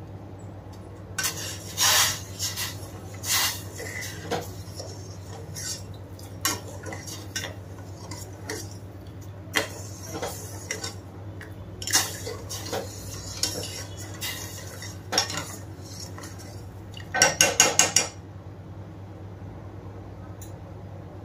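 Metal spoon stirring sugar and water in a stainless steel saucepan, clinking and scraping irregularly against the pan. A quick run of clinks comes near the end, over a steady low hum.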